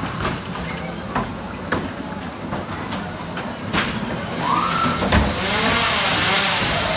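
Ghost train ride: sharp knocks and clatter as the car runs through the dark, with wavering wails. About five seconds in a bang is followed by a loud steady hiss, like a ride's compressed-air scare effect.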